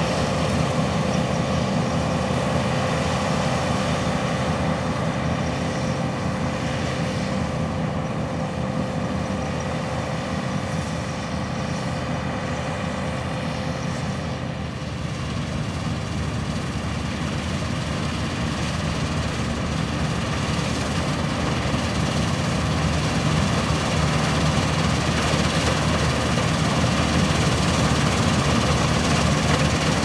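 New Holland TX36 combine harvester running and cutting wheat, a steady heavy machine drone with a thin whine through the first half. It grows louder over the second half as the combine comes closer.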